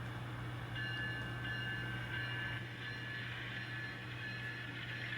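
N scale model locomotive running on the layout track, a steady hum with a thin high whine that comes in about a second in.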